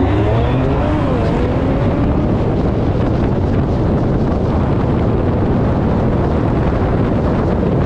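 Kia Stinger GT's twin-turbo 3.3-litre V6 at full throttle down the drag strip, its pitch climbing, dipping at an upshift about a second in and climbing again, soon buried under heavy wind noise on the outside-mounted camera.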